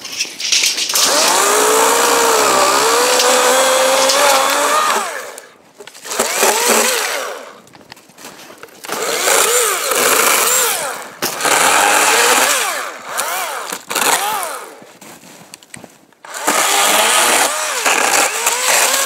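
Chainsaw limbing a felled tree in several bursts of cutting, its pitch rising and sagging as the chain bites into each branch, with short pauses between the cuts.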